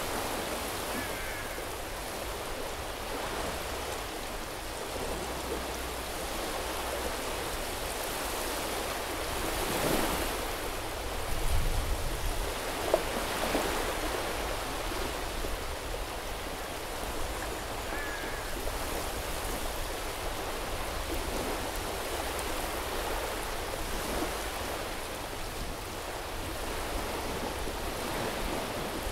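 Sea surf washing onto a beach in a steady hiss, with waves breaking and drawing back. It swells louder with a low rumble about ten to thirteen seconds in.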